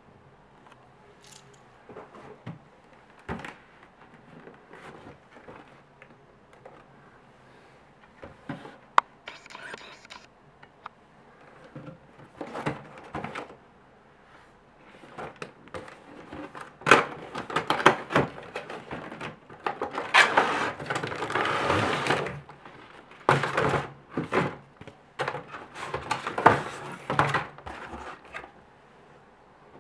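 Cardboard box and plastic packaging being handled and opened. Scattered taps and knocks come first, then from about halfway a longer, louder stretch of rustling and scraping as the lid comes off and the plastic tray and paper manual are handled.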